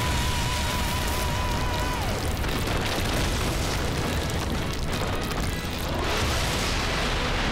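Cartoon explosion sound effects, one long sustained blast, mixed with background music. A wavering whine slides down and stops about two seconds in.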